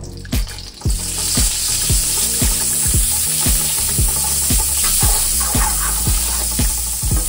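Butter and oil sizzling in a hot nonstick frying pan while a wooden spatula stirs them around; the sizzle jumps up loud about a second in and then holds steady. Underneath is background music with a steady low beat.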